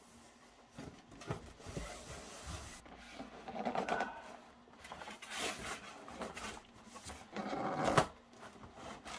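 Long cardboard box being opened by hand: lid flaps lifted and folded back, cardboard scraping and rustling in uneven bursts, with a sharp knock about eight seconds in.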